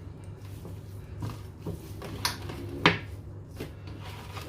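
A few short knocks and clicks of kitchen handling, the sharpest about three seconds in, over a steady low hum.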